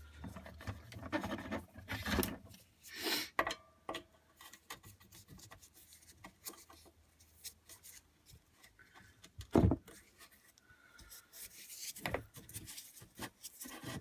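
Intermittent scraping and rubbing of a hand tool working at a broken-off screw in a wood stove door, with a sharp knock about ten seconds in.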